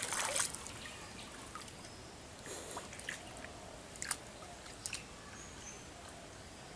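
Wet cast net being drawn in by hand at the water's edge: a brief splash of water at the start, then faint, scattered drips and small splashes.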